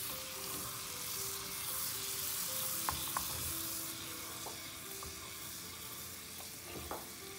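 Butter sizzling in a small saucepan while a spoon stirs it, with a few light clicks of the spoon against the pan.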